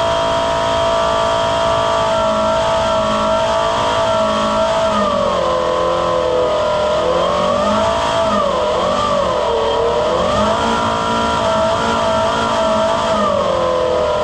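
Buffalo Turbine Cyclone Hydraulic blower running at full blast, a loud whine over rushing air. Its pitch is steady at first, then wavers up and down repeatedly from about two seconds in.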